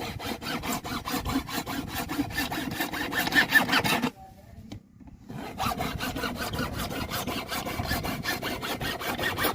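Hand saw cutting through a round pipe in rapid, even back-and-forth strokes, stopping for about a second a little past the middle before sawing on.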